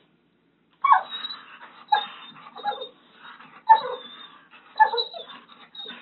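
A dog whining in short, falling cries about once a second, starting just under a second in.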